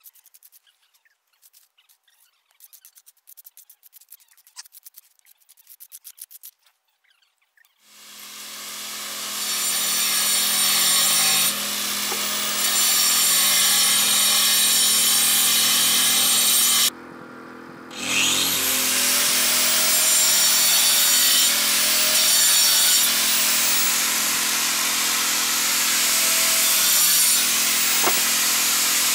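A trowel scraping faintly over a fresh concrete pad, then an angle grinder spinning up about eight seconds in and cutting into brick, running loud and steady. It cuts out briefly a little past halfway and starts again with a rising whine.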